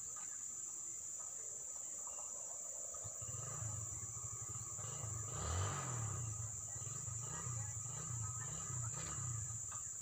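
Steady high-pitched drone of insects. A low wavering hum comes in about three seconds in, with a brief noisy swell around the middle.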